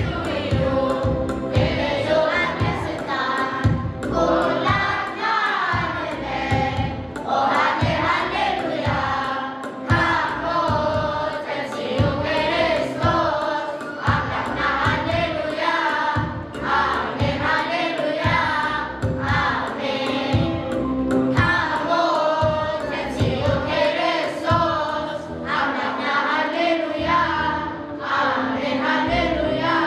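Children's choir singing a Tigrinya Easter hymn, with a steady low beat underneath.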